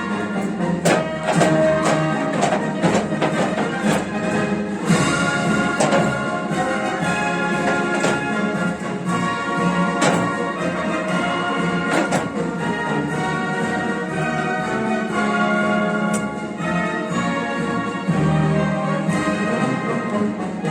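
Orchestral music with brass and strings, punctuated by sharp percussion hits every second or two.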